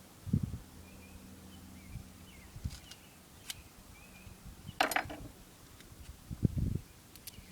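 Handling noises as the end of a homemade potato cannon barrel is sealed with tape: a few dull knocks and one short, sharp rip about five seconds in, with faint high chirps in the background.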